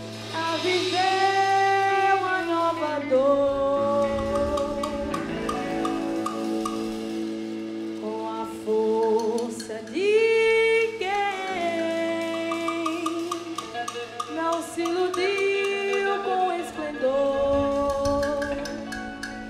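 A woman singing a slow song in Portuguese, holding long notes, over a live band of electric guitar, bass guitar and drum kit.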